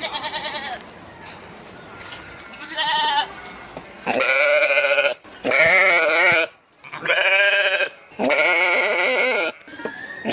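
Sheep bleating repeatedly: about six calls, two short ones followed by four longer ones of about a second each, their pitch quavering.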